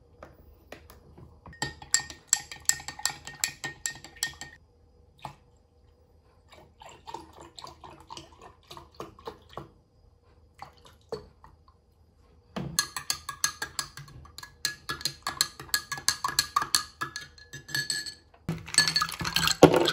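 A metal spoon stirring fast in a drinking glass, clinking rapidly against the sides with a ringing glass tone. It comes in three spells with short pauses between, and the last spell is the loudest.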